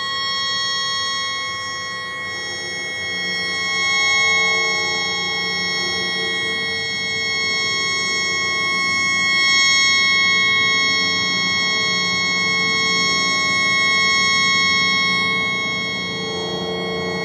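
A stuck tugboat horn blowing without a break, its air horn jammed on by a malfunction. It is sped up four times, so it sounds as a high-pitched, steady chord of several held tones.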